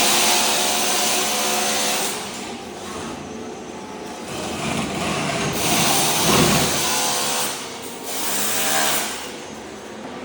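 Ride-on floor scraper running, its blade scraping thin-set mortar off a concrete slab. The scraping comes in three loud stretches, the longest in the middle, with the machine running more quietly between them.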